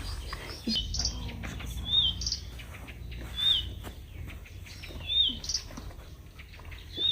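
A bird chirping: a short, high chirp that rises and falls, repeated about every second and a half, with fainter higher chirps between.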